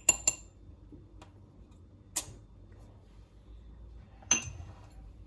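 Teaspoon clinking against a cup while ground cloves are spooned in. There is a quick run of ringing clinks at the start, a single sharp click about two seconds in, and another ringing clink near the end.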